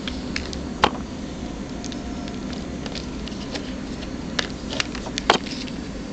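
Scattered small clicks and taps of handling, the sharpest a little under a second in and near the end, over a steady hiss and low hum.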